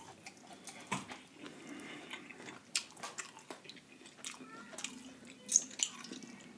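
Wet chewing and mouth sounds of eating a buttery seafood boil, with scattered sharp clicks. Near the end a lemon wedge is squeezed over the food, with a couple of louder wet clicks.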